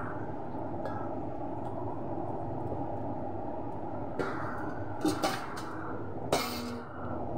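Metal spatula scraping and clanking against a wok while stir-frying green beans with ground meat, loudest in a few strokes from about four seconds in, over a steady low background noise.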